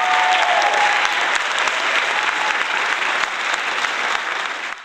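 A small crowd applauding, many hands clapping, slowly getting quieter and then cutting off suddenly near the end.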